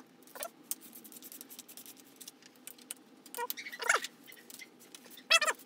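Light, irregular clicking of a socket ratchet and bolts as the 8 mm bolts of the front sprocket cover are worked loose, with two short whining sounds about four and five and a half seconds in.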